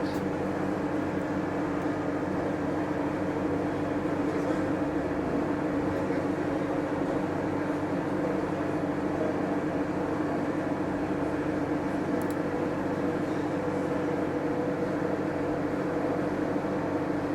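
Steady droning hum of a large store's indoor ambience, like air handling, holding at one level throughout with no distinct events.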